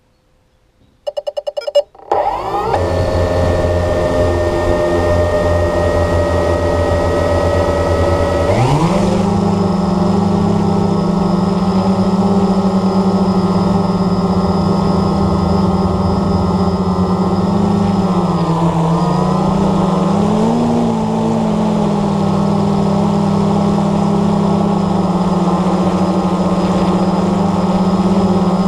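A quick run of short beeps, then the Blade 350 QX3 quadcopter's electric motors and propellers spin up to a steady idle hum, heard from the camera mounted on the drone. About eight seconds in the pitch rises sharply as the throttle comes up for takeoff, and the motors settle into a steady, higher buzz in flight, wavering slightly in pitch for a few seconds midway.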